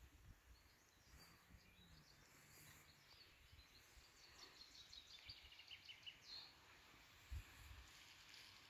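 Near silence with faint distant birdsong: scattered high chirps and a short rapid trill in the middle, and a soft low bump near the end.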